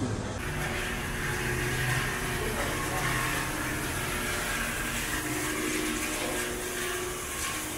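Steady street ambience: a vehicle engine hum under an even hiss.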